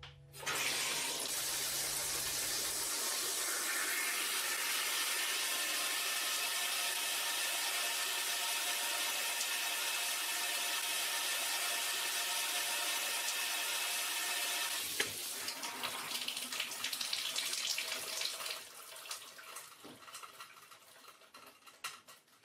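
Shower running: the water spray starts about half a second in and runs as a steady hiss, then turns uneven around fifteen seconds in and fades away, leaving faint scattered sounds.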